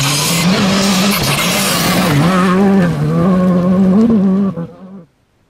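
Rally car sliding past on gravel, its engine held at high revs with a brief dip about two seconds in, tyres spraying loose stones. The sound cuts off abruptly near the end.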